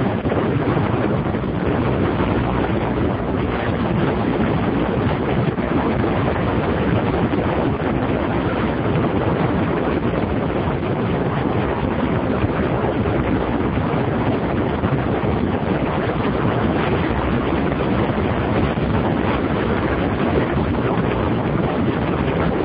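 Steady wind rush on the microphone over the engine and tyre noise of a BMW F650 Funduro single-cylinder motorcycle cruising at an even speed.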